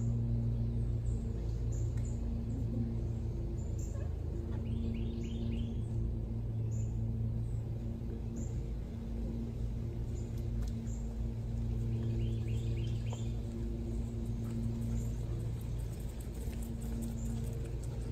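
Birds chirping over a steady low hum, with a quick run of several short chirps about five seconds in and again about twelve seconds in.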